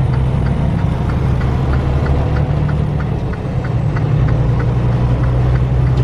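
Truck engine running steadily under way, heard from inside the cab as a low, even drone. A light ticking repeats about three times a second over it.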